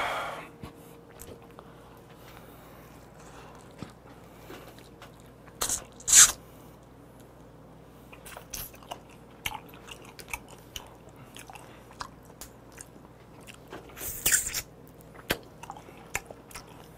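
Close-up mouth sounds of a man eating raw armored shrimp sashimi by hand: chewing with many small wet clicks. There are louder noisy bursts about six seconds in, the loudest, and again near fourteen seconds, and a short breathy sound right at the start.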